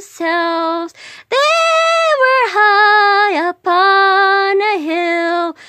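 A lone female voice singing without accompaniment, holding long notes with a few downward slides between them.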